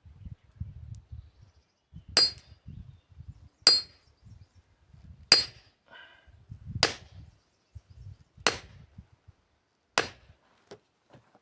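Sledgehammer striking a steel splitting wedge set in an oak log, driving the wedge in. Six sharp ringing metal blows, about one and a half seconds apart.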